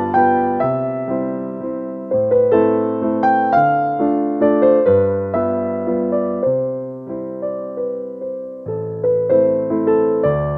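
Background piano music: a slow melody over low chords, each note struck and then fading.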